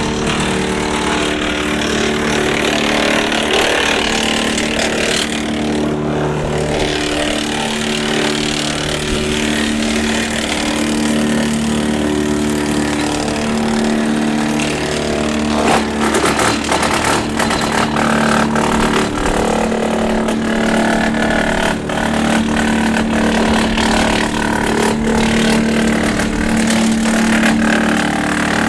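Tractor engine steadily driving a Woodland Mills TF810 PTO wood chipper, its twin flywheels spinning. From about halfway through, a rapid, irregular crackle of clicks and knocks joins the machine's steady hum as small branches are chipped.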